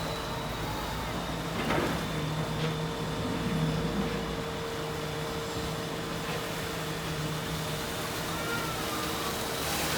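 Excavator's diesel engine running steadily, with a few faint knocks; its low rumble eases off about four seconds in.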